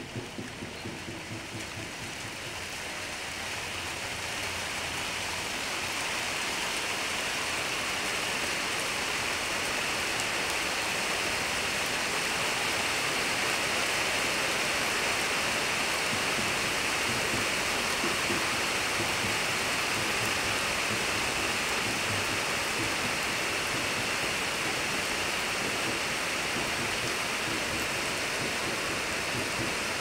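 Steady hiss of water, such as rain or a rushing stream, growing louder over the first few seconds and then holding even.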